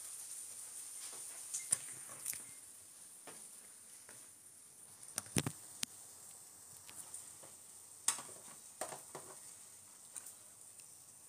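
Handling noise: scattered knocks and clicks as the phone is moved and a plate is picked up, loudest about five and eight seconds in, over a steady faint hiss.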